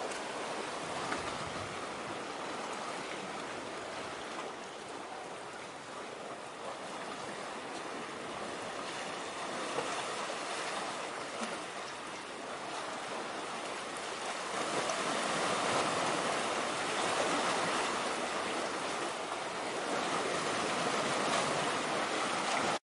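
Sea water washing and lapping at the shore, a steady rushing that swells louder about two-thirds of the way through.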